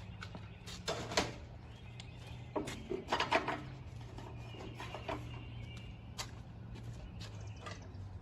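Scattered short knocks and clanks over a steady low hum, with a small cluster about three seconds in.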